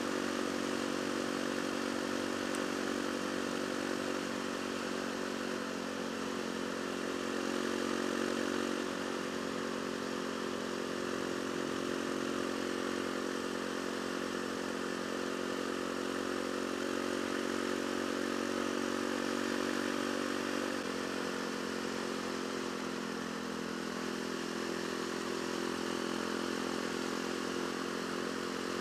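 Yamaha WR450F's single-cylinder four-stroke engine running steadily at highway cruising speed, heard from the rider's helmet with wind rush over it. The engine note drops slightly about two-thirds of the way through.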